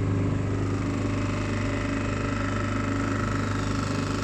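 Small petrol motorboat engine running steadily at an even pitch under way.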